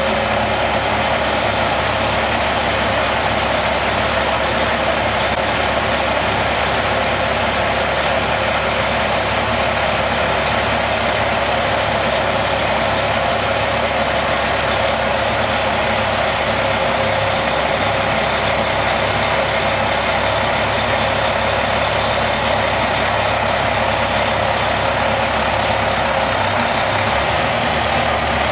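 Semi-truck diesel engine running steadily as the tractor hauls a loaded equipment trailer.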